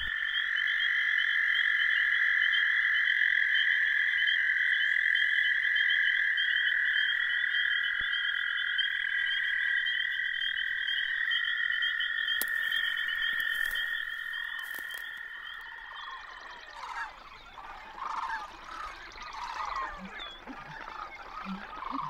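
A steady chorus of frogs trilling, several long overlapping trills at slightly different pitches. It fades out about sixteen seconds in, leaving fainter scattered calls.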